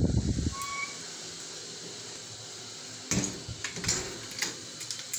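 A dull thump at the start, then a few sharp clicks and knocks about three to four and a half seconds in.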